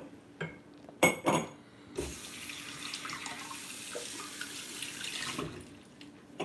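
A few knocks and clinks, then water running from a kitchen tap for about three seconds before it stops.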